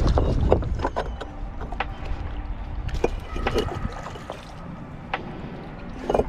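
Baitcasting reel being wound in: sharp clicks and a brief whirring from the reel, with light splashing at the water's surface. Wind buffets the microphone at the start.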